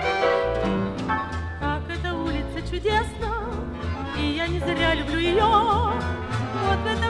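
Soviet estrada song playing from a 1961 vinyl record: an instrumental ensemble, joined about three seconds in by a woman singing with strong vibrato.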